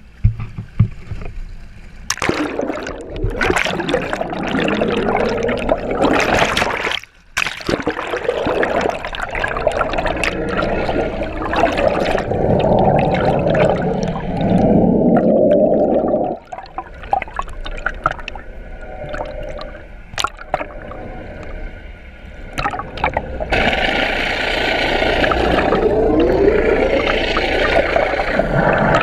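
Water rushing and gurgling close against the GoPro, loud and churning, breaking off suddenly twice.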